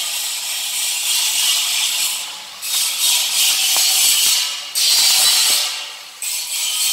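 Stud welding gun firing studs onto a steel plate: several short bursts of harsh hiss that start and stop abruptly, with a few sharp clicks, over a steady high hiss.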